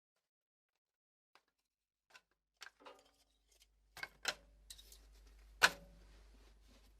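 A series of short clicks and light knocks, sparse at first and then louder, with one sharp knock a little past the middle, over a faint low hum.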